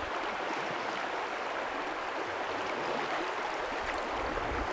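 Shallow river water running over a riffle: a steady hiss of moving water, with a low rumble coming in near the end.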